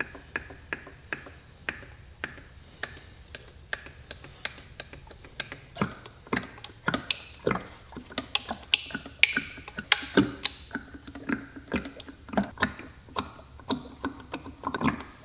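5W-30 motor oil glugging out of a large plastic jug into a funnel, a short regular gulp about two or three times a second. From about six seconds in the glugs come louder and less regular.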